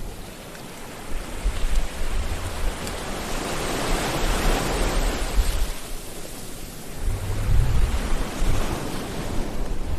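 Sea waves washing onto a shore: a steady hiss of surf that swells to its loudest about four seconds in, with low rumbles underneath.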